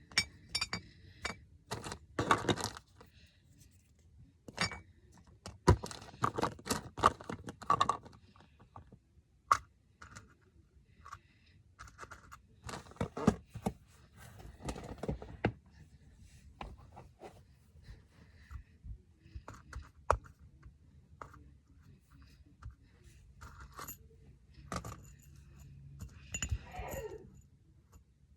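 Hard plastic clicking, knocking and scraping from a plastic container and small objects being handled, in irregular bursts with a few sharp knocks.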